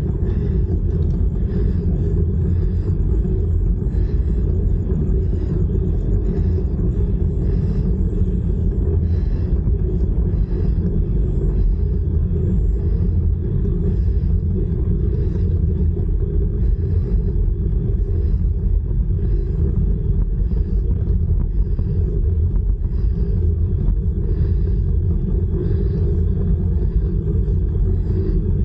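Steady wind rumble buffeting the camera microphone of a moving bicycle, heavy and low with no pauses or changes.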